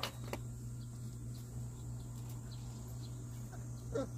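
A month-old Jindo-mix puppy lets out a short whimper about four seconds in, as the vaccine needle goes in, over a steady low hum and a couple of light clicks at the start.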